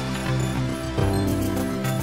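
Background music with sustained chords and a steady low bass.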